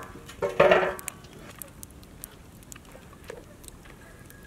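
A large metal cooking pot being set down on a steel stand over a wood fire, giving a clank that rings briefly, about half a second in. After that the wood fire crackles faintly with scattered small pops.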